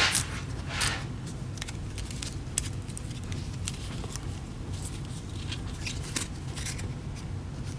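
Stack of foil basketball trading cards being shuffled and flipped through by hand: irregular light flicks, clicks and rustles of card edges sliding against each other.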